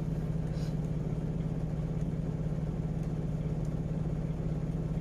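Steady low hum of a running motor with a fast, even pulse, and a faint click about half a second in.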